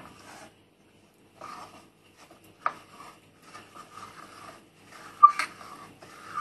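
A spoon stirring cornstarch into cold water in a stainless steel pot, dissolving the starch: an on-and-off scraping and swishing against the bottom, with a few sharp clinks on the pot, the loudest about five seconds in.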